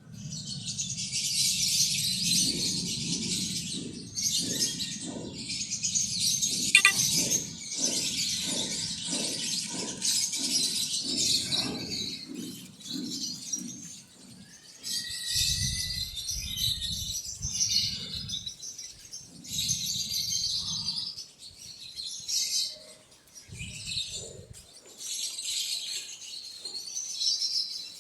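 Quail chirping together in repeated bursts of a few seconds, over low bumping and handling sounds.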